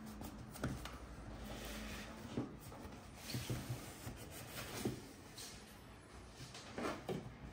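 Cardboard model boxes handled on a desk: scattered soft taps, rubs and scrapes of card, a handful of them spread across a few seconds.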